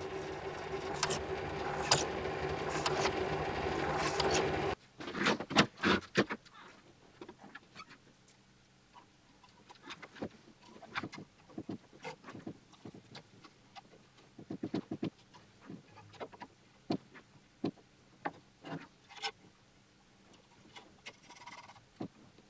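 Bench drill press motor running while the bit cuts through a small metal piece, stopping abruptly about five seconds in. Then scattered light metallic clicks and clinks of nuts, a bolt and a perforated metal strip being handled and fitted together.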